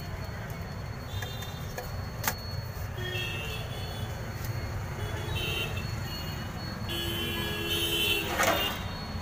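Street traffic: a steady low rumble of passing vehicles with short vehicle-horn toots several times, the longest and loudest near the end.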